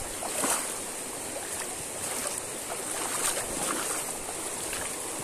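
Rushing river current, with a few splashes from wading through it.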